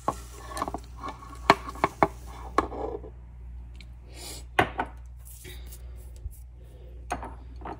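Sugar poured from a glass bowl into a stainless steel stand-mixer bowl: a soft rustle of sugar sliding out and about half a dozen sharp knocks and clinks as the glass bowl is tapped against the rim to empty it.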